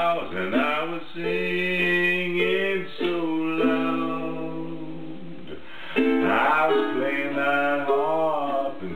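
Instrumental break in a blues song: a harmonica plays long held notes and, near the end, bending notes over a strummed string accompaniment.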